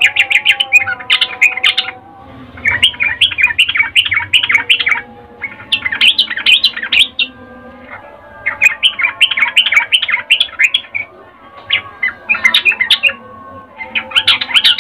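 Female yellow-vented bulbul giving its breeding-condition chatter, a female calling for a male. It comes in repeated bursts of rapid, bubbling notes, about six phrases of one to two and a half seconds each with short pauses between them.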